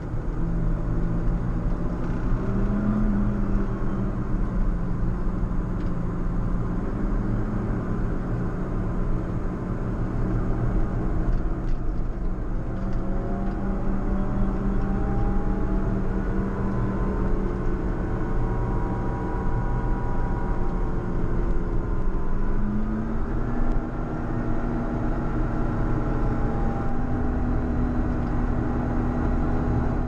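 JCB Fastrac 4220 tractor's engine running steadily while it pushes a snow plough, heard from inside the cab. Its pitch rises a couple of times and briefly sags as engine speed changes.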